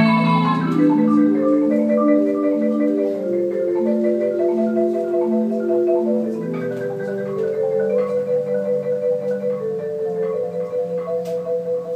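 Marimba played solo with mallets: a slow melody of single notes, moving into pulsing rolled notes in the second half and growing gradually quieter.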